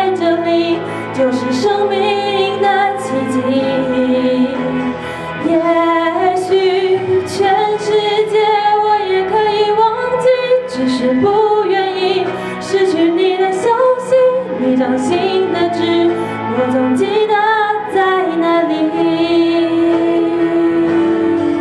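A woman singing a slow Mandarin pop ballad into a handheld microphone over a karaoke backing track, holding long notes with vibrato. A long held note ends near the close.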